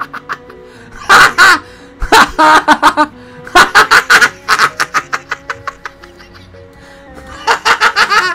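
A person laughing hard in several loud bursts of quick, repeated cackles, over quiet background music.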